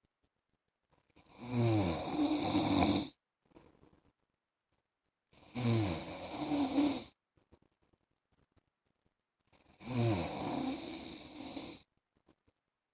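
A man snoring in his sleep: three loud snores about four seconds apart, each lasting about two seconds and starting with a falling pitch.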